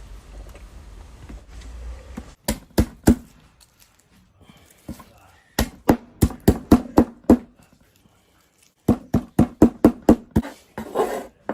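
A low steady hum stops about two seconds in. It is followed by sharp knocks in quick runs: three single strikes, then two runs of eight or nine strikes at about five a second.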